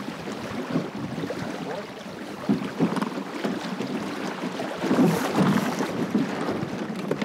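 Water rushing and splashing along the hull of a plywood Goat Island Skiff sailing fast in a good breeze, with wind buffeting the microphone. The splashing surges louder about two and a half seconds in and again around five seconds in.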